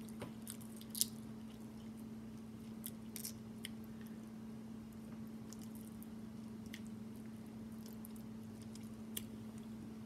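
Cooked crab leg shell cracked and picked apart by hand, slick with sauce: scattered sharp little cracks and wet squishes, with some chewing. A steady low hum runs underneath.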